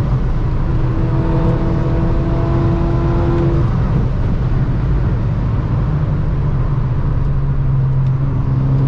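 Car engine and road noise heard from inside the cabin at highway speed: a steady low drone, with the engine note growing louder about halfway through.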